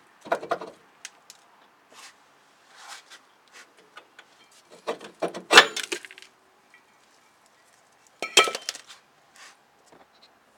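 Metallic clinks and knocks of a loosened, rusty brake rotor being handled on the wheel hub, in a few short clusters: one near the start, the loudest about five to six seconds in, and another about eight seconds in.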